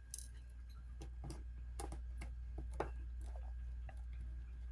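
Faint, irregular small clicks, about two a second, from a precision screwdriver working a tiny screw out of a smartphone's internal frame.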